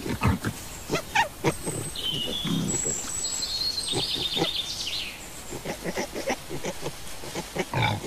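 Wild boars with their piglets grunting, many short grunts one after another, with higher squeaky calls around the middle.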